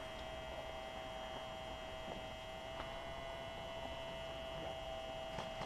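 Faint steady electrical hum, a few thin tones held without change, with a couple of very faint ticks.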